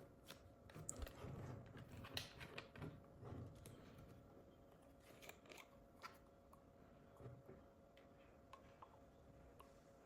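Faint handling noises: scattered small clicks and short rustles, busiest in the first few seconds and sparser later, over a faint steady hum.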